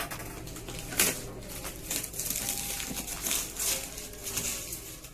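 Cardboard box and plastic packaging of a new PC component being opened by hand, crinkling and rustling, with a sharp snap about a second in.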